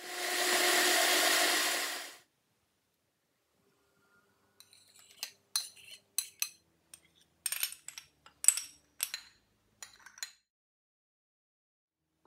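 Countertop blender running for about two seconds, mixing tomato soup powder, then cutting off. After a pause, a metal spoon clinks and scrapes against a plastic container and a bowl in a string of short, sharp clinks over about six seconds.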